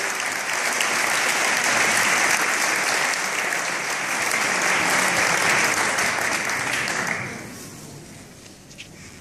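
Wedding guests applauding steadily, the clapping dying away about seven seconds in.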